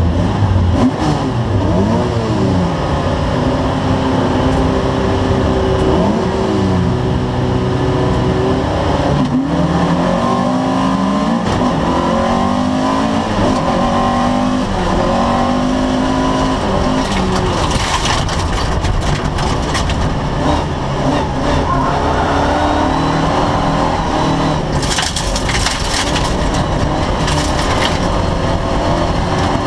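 Folk-race car's engine, heard inside the caged cabin, revving hard and climbing in pitch through the gears again and again. Harsh rattling spells come later, around two-thirds of the way in and near the end: loose gravel hitting the body and underside.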